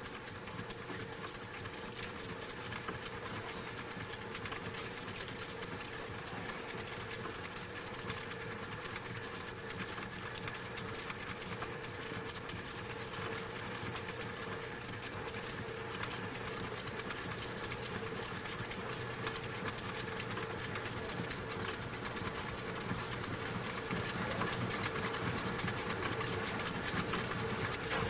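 Potter's wheel running under clay being thrown: a steady mechanical hum and whir, a little louder near the end.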